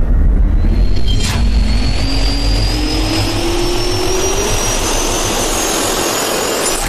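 Jet engine spooling up: a steady low roar with a whine that climbs in pitch, cutting off abruptly at the end.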